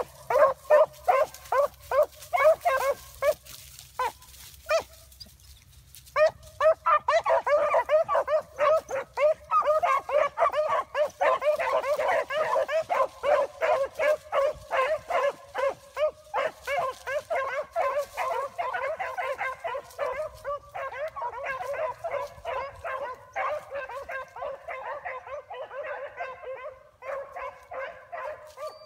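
A pack of rabbit hounds baying hard on a rabbit's trail, many dogs calling in rapid, overlapping cries. The pack goes briefly quiet a few seconds in, then opens up again and slowly fades.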